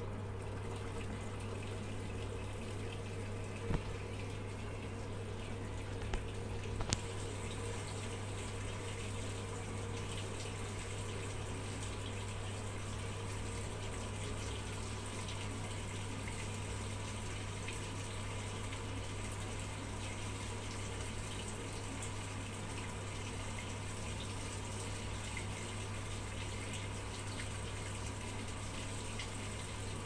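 Samsung top-loading washing machine filling at the start of its wash cycle: water pours steadily from the inlet into the drum onto the clothes, with a steady low hum underneath. A few clicks sound in the first seven seconds.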